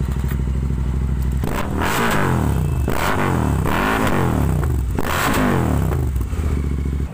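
Royal Enfield Interceptor 650's 648 cc parallel-twin engine running through a Red Rooster Stellar aftermarket exhaust: idling, then revved in about four quick throttle blips that rise and fall in pitch, then settling back to a steady idle.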